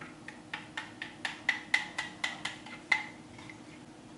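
Even, rapid ticking, about four sharp clicks a second, which stops about three seconds in.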